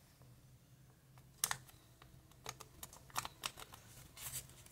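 Square of origami paper being folded in half and creased by hand: faint, short, crisp rustles and clicks at irregular intervals, the strongest about a second and a half in, over a faint steady low hum.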